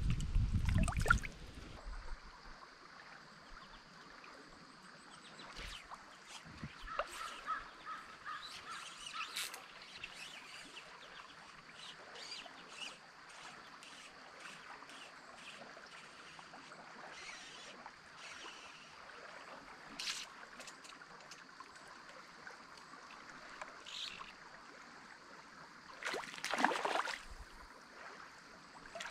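Stream water running steadily, with bird calls scattered throughout and a louder call near the end.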